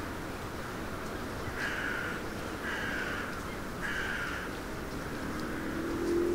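A crow cawing three times, each caw harsh and about half a second long, over a steady low background rumble. A low humming tone comes in near the end.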